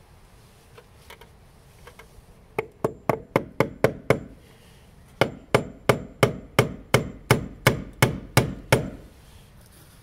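Hammer striking wood: a few light taps, then a quick run of about seven blows, a short pause, and about eleven more steady blows.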